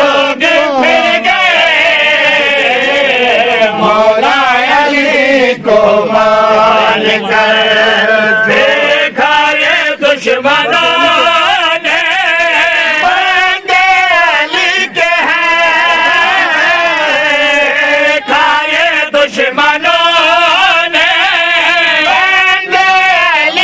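Men's voices chanting a devotional Urdu qasida, the melody held in long lines that waver and slide in pitch, with only brief breaths between phrases.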